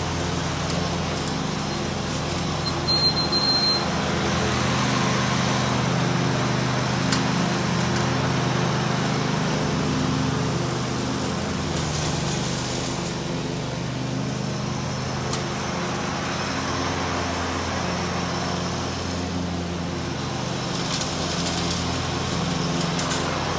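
Riding lawn mower's engine running steadily under load as it cuts grass, its sound holding even throughout.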